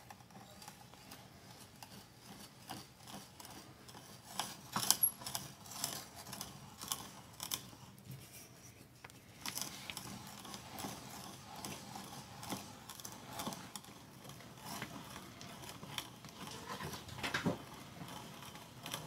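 Vintage crank hand drill boring a 3/4-inch spade bit into a block of wood: irregular scraping and clicking as the bit cuts, with a short pause about nine seconds in.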